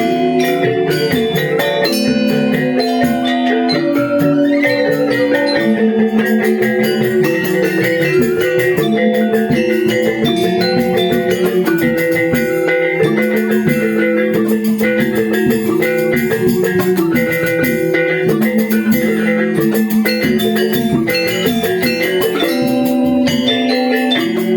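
Balinese gamelan angklung ensemble playing a tabuh kreasi: bronze-keyed metallophones struck with mallets in fast, dense interlocking notes over a sustained melody, at a steady level.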